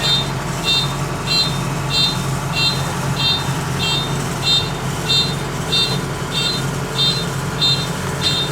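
Kubota DC-93 combine harvester's engine running steadily, with its warning beeper sounding about one and a half times a second.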